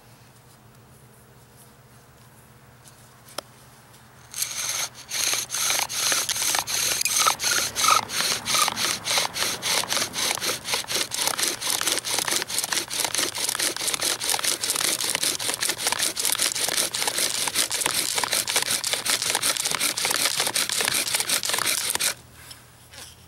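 Bow drill worked hard: a wooden spindle spun back and forth by a bow in a wooden hearth board, giving a fast, rhythmic grinding of wood on wood with each stroke. It starts about four seconds in and cuts off abruptly near the end, by which point the hearth board is smoking.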